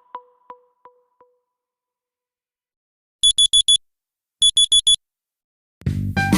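OnePlus OxygenOS 14 ringtones and alert tones: a knocking, wood-block-like tone fading away in the first second, then two sets of four quick, high electronic beeps like a digital alarm clock, and near the end a new ringtone on keyboard starting.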